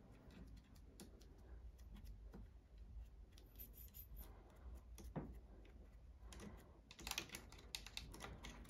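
Faint scattered clicks and light taps of hands working on the opened mechanism of a Pfaff 1229 sewing machine, with a quick run of clicks about seven seconds in.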